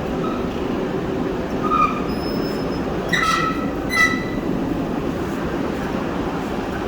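Metal wheels of a loaded rack of powder-coated parts rolling along a track into a curing oven, a steady rumble with short metallic squeals about two, three and four seconds in.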